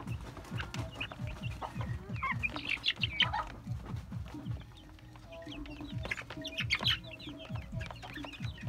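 Flock of young black chickens clucking at a feeder: a steady run of short low clucks, with higher, sharper calls now and then, most of them about 3 seconds in and again about 7 seconds in.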